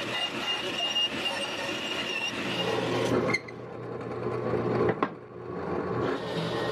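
Bandsaw running with a steady high whine as it cuts a piece of plywood, then, about three seconds in, a drill press running as a Forstner bit bores into a wooden block, with a steady low motor hum.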